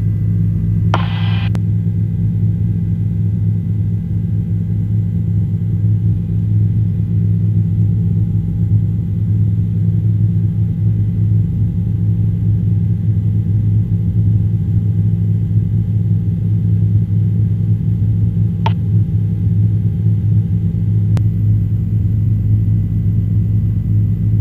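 Helicopter engine and rotor running with a loud, steady low drone. There is a brief crackle about a second in and a single click near the end.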